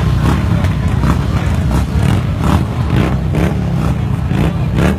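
Street crowd of many voices chattering and calling out, over a steady low rumble.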